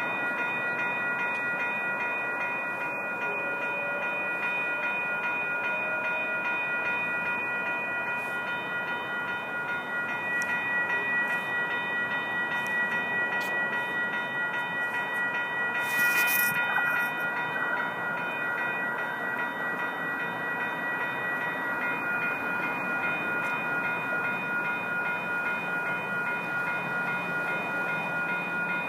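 Rail crossing warning bells ringing steadily, heard as several unbroken high tones over a constant background of rail and street noise. A short sharp hiss comes about 16 seconds in.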